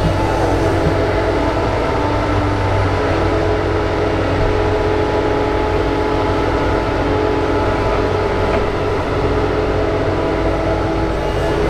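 Doosan DX225LCA crawler excavator's diesel engine running steadily under working load as it digs and lifts a bucket of earth, a constant drone with several held tones.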